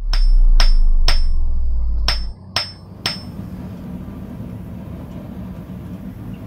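Six ringing metallic hammer blows on an anvil, in two groups of three about half a second apart. A loud deep drone runs under the first group and cuts off about two seconds in, then only a faint steady low hum remains.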